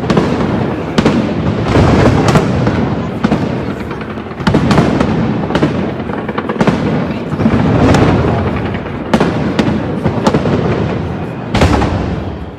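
Shell fireworks going off in quick succession: sharp cracks over a continuous rolling boom that swells and fades every few seconds, with one louder burst near the end.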